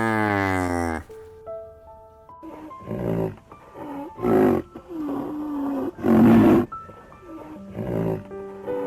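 A series of loud animal calls, about one every one and a half seconds, over background music with steady sustained notes. Before them a long, low pitched call ends about a second in.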